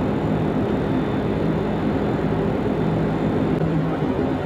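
Steady low drone of a ferry's engines and deck machinery, a constant hum with several low tones over a rushing haze.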